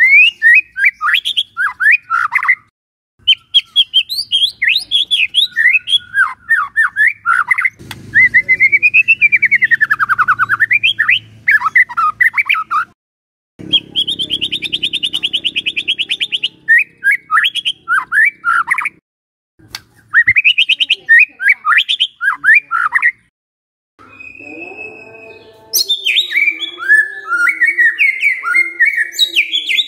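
White-rumped shama singing: bursts of fast, sweeping whistled phrases broken by short pauses, with an even, rapid trill about halfway through and dense chattering phrases near the end.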